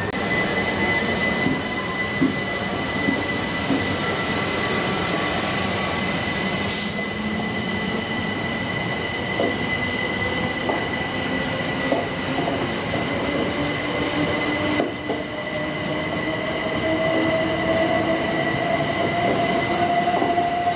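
A Southeastern Electrostar electric multiple unit moving along the platform, with a steady high-pitched whine and wheels clicking over rail joints now and then. From about halfway through, a lower motor whine rises slowly in pitch and grows louder as the train picks up speed.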